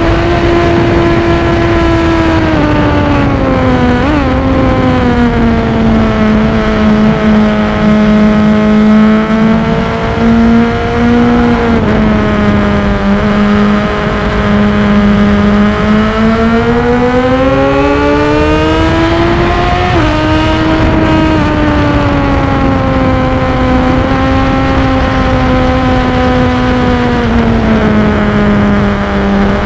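Sport motorcycle engine heard from on board the bike. The engine note falls as the rider slows for a corner and holds low through it. It then climbs under acceleration and drops sharply at a gear change about two-thirds of the way through.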